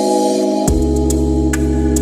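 Background music of held organ-like keyboard chords; about two-thirds of a second in, the chord changes, a deep bass comes in and light ticking percussion starts.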